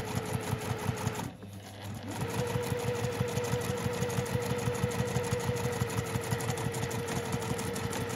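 Electric sewing machine stitching zipper tape to fabric at a steady, slow pace: a rapid regular ticking of needle strokes over a steady motor whine. It stops briefly a little over a second in, then runs on.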